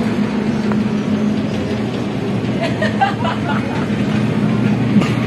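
Steady low mechanical hum, an unbroken drone over a background of noise.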